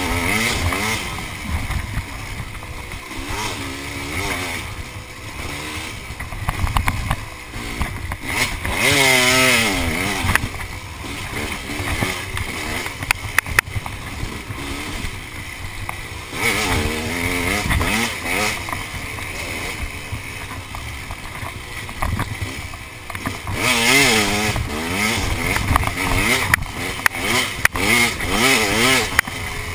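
KTM 300 EXC two-stroke dirt bike engine being ridden on a trail, revs climbing and dropping repeatedly as the rider accelerates and backs off, over a low rumble of wind and the clatter of the bike over rough ground.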